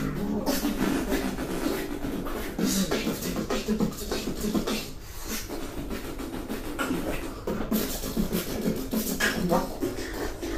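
Beatboxing: a performer's vocal percussion of sharp clicks and hissing hits in a quick rhythm over a pitched vocal line.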